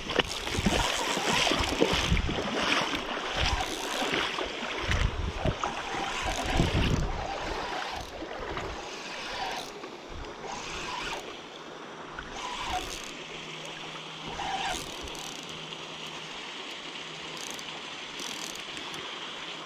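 Running river water and gusty wind on the microphone, with scattered short knocks of handling as a spinning reel is cranked close by. The gusts and knocks are heaviest in the first half, after which it settles to a steadier rush of water.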